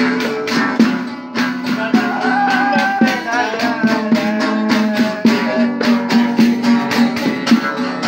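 An acoustic guitar is strummed while a pandeiro, a jingle tambourine, is shaken and struck in a quick steady beat. A man sings along.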